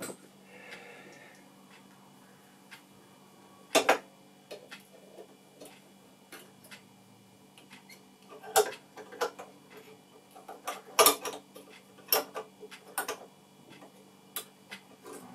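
Irregular clicks and taps of a glass reflector halogen lamp and its metal bracket and socket being handled as the lamp is worked out of a Super 8 projector's lamp housing. A loud double click comes about four seconds in, and a cluster of sharper clicks follows between about eight and thirteen seconds.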